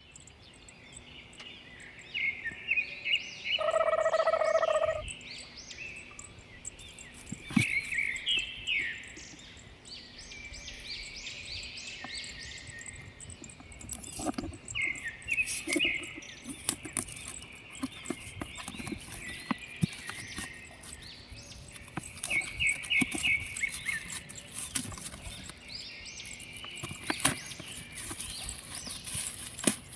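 Small birds chirping in short repeated trills, with scattered sharp clicks. About four seconds in, a louder steady held tone sounds for just over a second.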